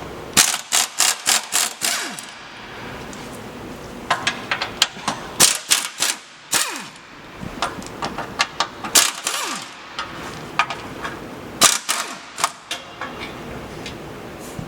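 Sharp metal-on-metal strikes in several quick bursts of four to six blows, about four a second, with short pauses between them: hammering on steel car parts.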